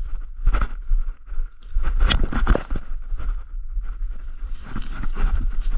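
Footsteps crunching through snow, irregular, with one sharper crack about two seconds in.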